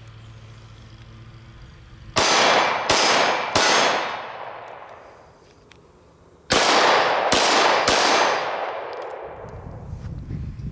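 Glock pistol firing 90-grain 9mm +P Underwood Xtreme Defender rounds: three shots in quick succession, roughly two a second, then after a pause of about three seconds another three. Each shot rings out in a long, fading tail.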